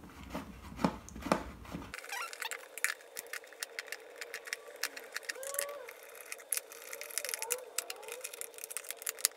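Screwdriver undoing the screws of a hoverboard's plastic shell: faint, irregular small clicks and ticks of metal on screw heads and plastic, with a few short squeaks in the middle.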